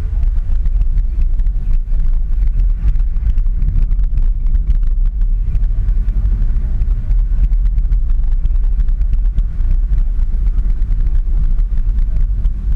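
Car interior noise while driving at low speed: a steady low rumble of the engine and tyres, with frequent small clicks and rattles as the car goes over the uneven road surface.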